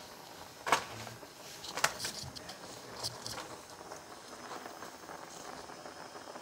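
Noodle soup broth bubbling at a rolling boil in a pot, a steady soft bubbling and crackle. Two sharp knocks stand out, about a second in and just before two seconds, with a few lighter ticks around three seconds.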